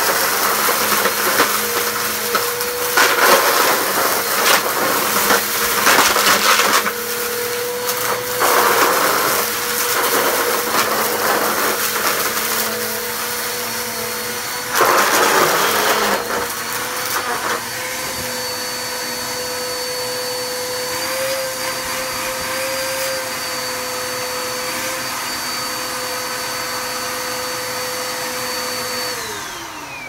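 Bagless upright vacuum cleaner running on a rug with a steady motor whine. Several louder surges in the first half come as it sucks up loose debris. Near the end it is switched off and the whine falls away as the motor winds down.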